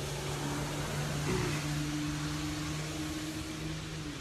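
Outdoor street ambience in the rain: a constant hiss of rain and traffic under a steady low mechanical hum. The hum dips slightly in pitch about half a second in and stops just before the end.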